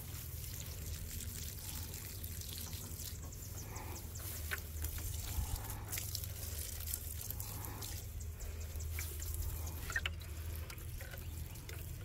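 Water trickling from a plastic watering can onto soil and leaves, with scattered light clicks and rustles.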